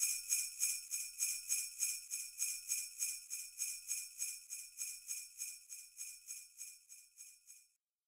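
Jingle bells shaken in a steady rhythm, about four shakes a second, fading out and stopping shortly before the end.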